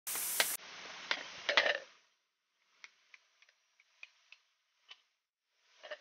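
Small hatchet working along a green bamboo pole, trimming it. A loud rasping scrape with a few sharp knocks over the first two seconds, then a string of light, irregular ticks of the blade on the bamboo, and a short brushing scrape near the end.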